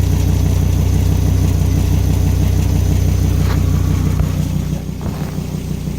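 Volvo V70 XC's five-cylinder engine running steadily at idle through a leaking exhaust, with a quick even pulsing. There is a click about four seconds in, after which the sound is a little quieter.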